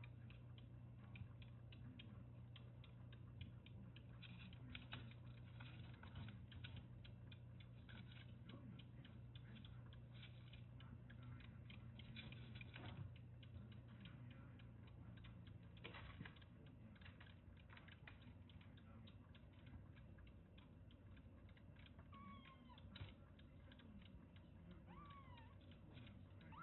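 Kitten suckling milk from a small nursing bottle: rapid, wet clicking of sucking on the nipple, thinning out after about two-thirds of the way. Near the end, a few short, high mews.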